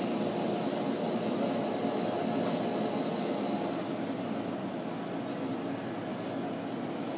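Steady low mechanical hum with a faint hiss, easing slightly about four seconds in.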